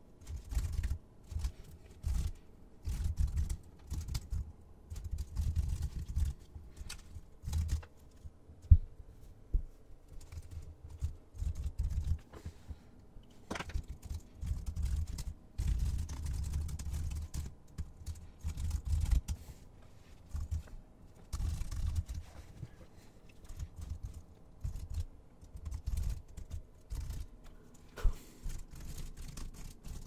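Typing on a computer keyboard in irregular bursts of keystrokes, each with a low thump, and one sharper, louder click about nine seconds in.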